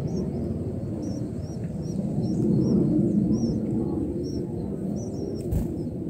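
White-eye nestlings begging with short, high chirps, about two or three a second, over a steady low rumble.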